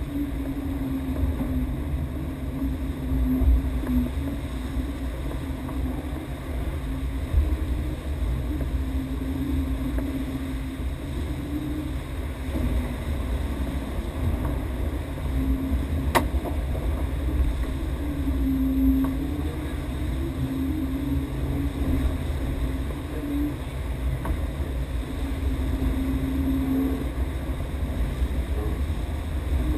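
IMOCA 60 racing yacht sailing fast at sea: water rushing along the hull and wind buffeting the deck-mounted microphone, with a low wavering hum that comes and goes. A single sharp click about halfway through.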